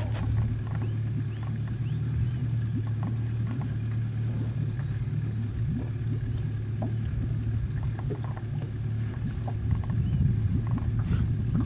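A boat's engine running steadily at low revs, a constant low hum, with faint scattered clicks and a few short high chirps over it.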